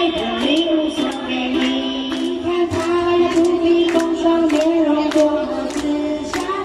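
Ukulele ensemble strumming in a steady rhythm, about two strums a second, while a group of girls and women sing the melody together.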